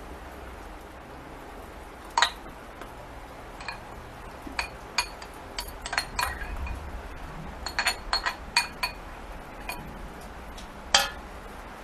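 Metal spoon clinking against a clear bowl while scooping out cooked soy: a dozen or so irregular clinks, the loudest about two seconds in and again near the end.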